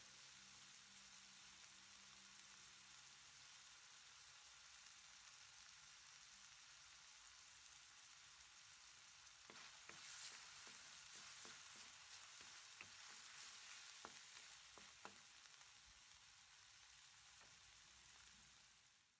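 Diced mixed vegetables (carrots, peas and corn) sizzling quietly and steadily in a wok. From about halfway through, a wooden spatula stirs them, with a run of scraping and tapping against the wok.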